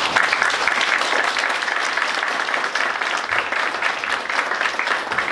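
Audience applauding: many hands clapping in a steady round.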